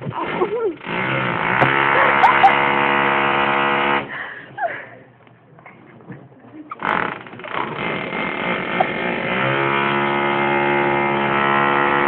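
A person making a loud, low, steady droning noise with the voice, held for about three seconds, then started again a few seconds later and held to the end.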